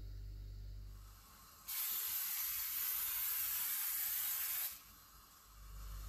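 Can of cooking-oil spray hissing onto a ridged grill pan in one continuous spray of about three seconds that starts and stops abruptly.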